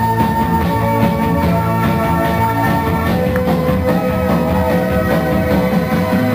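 Loud dance music with a steady beat and long held notes.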